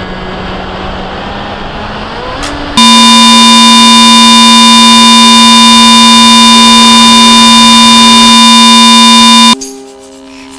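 A steady noisy rush, then a very loud, unchanging electronic buzz tone that starts suddenly about three seconds in, holds for about seven seconds and cuts off abruptly.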